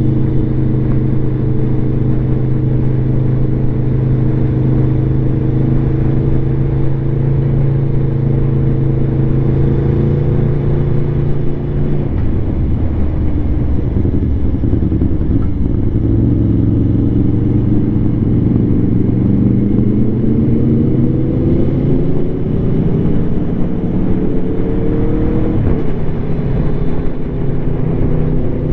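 Aprilia Tuono V4 motorcycle engine through an SC Project carbon slip-on exhaust, holding a steady pitch at cruise for about twelve seconds, then easing off. It then pulls through the revs with a rising pitch and drops suddenly near the end as it shifts gear.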